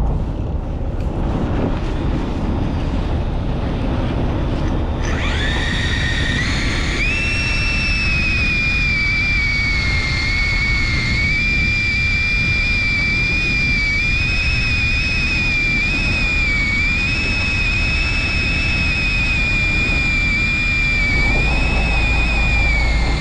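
Electric fishing reel winding in the line with a steady high whine that starts about five seconds in, steps up in pitch over the next two seconds, then holds with a slight waver as it hauls up a hooked fish. Under it, a low steady rumble of the boat and wind.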